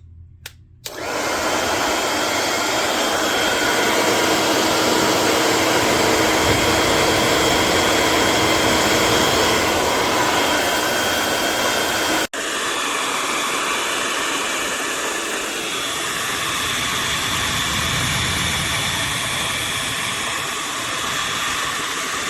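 Faszin ionic hair dryer (AC motor) switched on and running: a steady rush of blown air with a faint motor whine, starting about a second in after a couple of clicks. It cuts out for a moment about twelve seconds in, then runs on slightly quieter.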